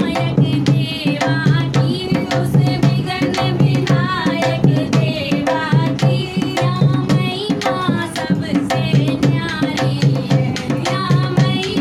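Two women's voices singing a Hindi devotional bhajan, accompanied by a dholak hand drum played in a steady repeating rhythm of deep bass strokes and sharp slaps.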